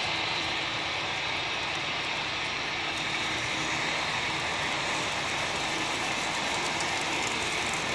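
HO-scale model freight train running past on the layout's track: a steady rushing whir of the wagons' metal wheels rolling on the rails.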